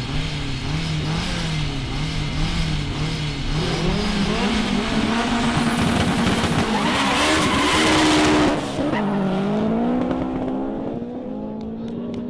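Two tuned cars, an all-wheel-drive Honda Civic and a Mitsubishi Lancer Evolution, revving up and down at the start line, then launching at full throttle. The engines climb to their loudest about eight seconds in, drop in pitch at a gear change, and climb again as the cars pull away down the strip, fading.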